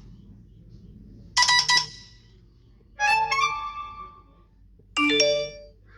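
iPhone 14 ringtones and alert tones played one after another: three short, different chiming tunes, each cut off after under a second, coming about every two seconds.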